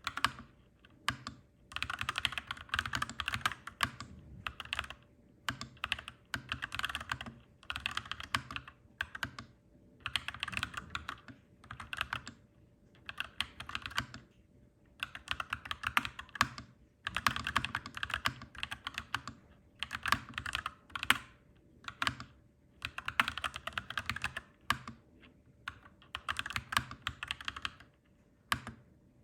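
Clacky mechanical keyboard typing: quick runs of keystrokes lasting a second or two, broken by short pauses.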